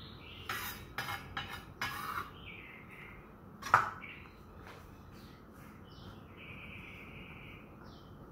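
Kitchen utensils and dishes being handled: a few short clatters in the first two seconds, then one sharp clink near the middle. Birds chirp in the background.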